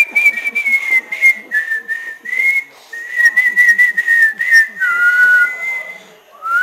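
A person whistling by mouth: one sustained, slightly wavering note that slides up into pitch at the start, steps down and back a few times, drops lower about five seconds in, and slides up again near the end.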